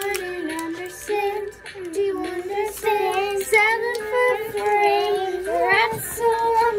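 Young girls singing along with a recorded song playing in the background.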